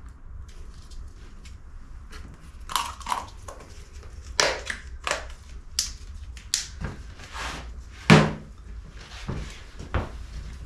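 Plastic tub of exhaust gasket paste being closed and handled: a string of scattered clicks and knocks as the lid is pressed on, the loudest a single knock about eight seconds in as the tub is set down on the plastic table top.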